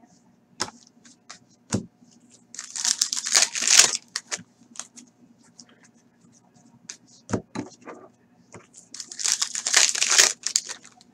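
A foil hockey-card pack being torn open and crinkled by hand, in two bursts of crinkling about three seconds in and again near the end, with light clicks and taps of cards and wrapper being handled between them.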